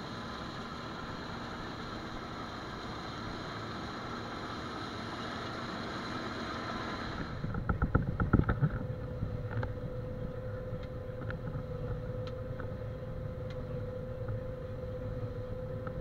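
Combine harvester running while cutting soybeans: first a steady dense machine noise close to the header with some wind on the microphone, then, after a sudden change about seven seconds in, heard from inside the cab as a lower rumble with a steady hum. A cluster of loud knocks comes just after the change, followed by scattered light ticks.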